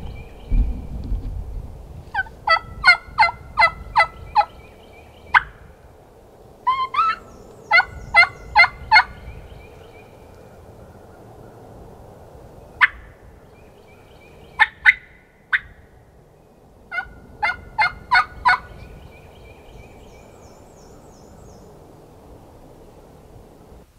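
Turkey hen yelps and clucks made on a hunter's turkey call, close and loud: four runs of evenly spaced yelps, about three notes a second, with single sharp clucks between the runs.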